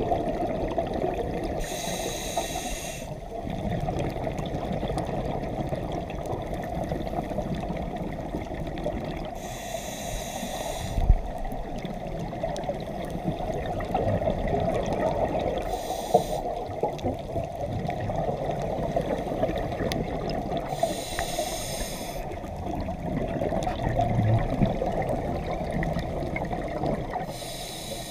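Scuba diver breathing through a regulator underwater: five hisses of air, about one every five to six seconds, over a steady muffled water rumble.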